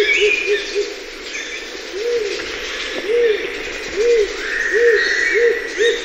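Rose-crowned fruit dove hooting, a series of short, deep hoo notes. A quick run of hoots ends about a second in. A new series begins slowly about two seconds in and speeds up, with other birds chirping higher up behind it.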